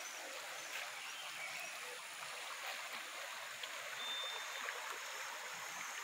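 Steady, even rushing of a shallow, muddy river flowing.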